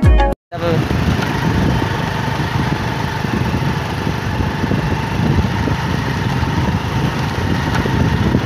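Motorcycle engine running steadily while riding, with a dense rush of road and wind noise.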